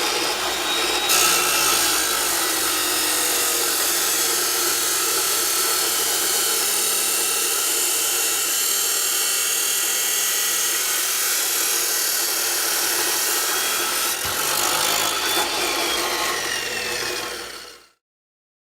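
14-inch metal cutting saw running and cutting through steel strut channel, a steady loud grinding whir. Near the end the motor's whine falls in pitch as it winds down, then the sound cuts off suddenly.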